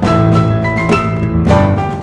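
Instrumental background music: held melody notes over a steady bass line, with new notes coming in every half second or so.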